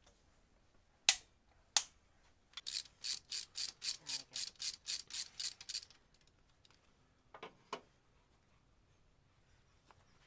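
Hand ratchet wrench clicking: two single clicks, then a quick run of about fifteen even clicks at four to five a second lasting about three seconds, and a couple more clicks later on.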